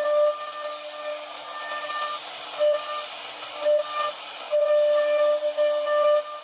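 CNC router spindle running while cutting: a steady hum with hiss, under a loud high-pitched whine of constant pitch that comes and goes several times as the bit cuts.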